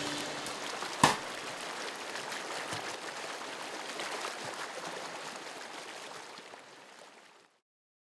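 Water ambience with a rain-like patter, an even crackly hiss that fades out to silence near the end. A single sharp click comes about a second in.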